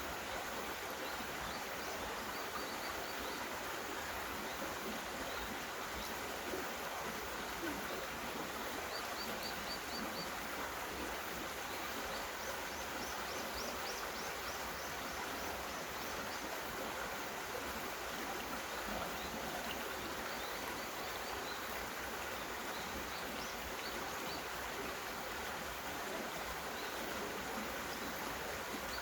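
Mountain stream running steadily over rocks, with short rapid series of high-pitched chirps from a bird or insect heard several times.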